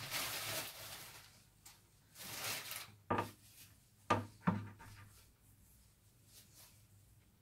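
Ground walnuts sprinkled by hand over a layer of baklava dough in a metal baking tray, a soft rustle, followed by three light knocks a little after halfway.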